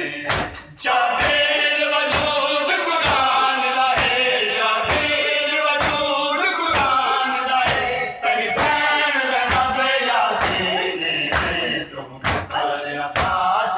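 Men chanting a noha in unison while beating their chests with open hands (matam), the slaps landing together in a steady rhythm about once every half second to a second.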